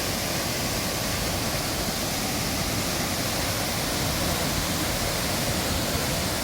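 Large waterfall in a torrent: a steady, even rush of heavy falling water.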